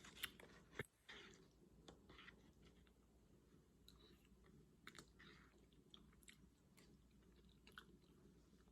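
Close-up chewing and mouth sounds of someone eating fettuccine alfredo, soft wet smacks and clicks scattered throughout.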